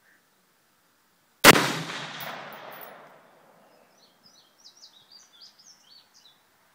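A single shot from a Colt AR-15 in .223, about a second and a half in, its report echoing and fading over about a second and a half. Birds chirp a few times near the end.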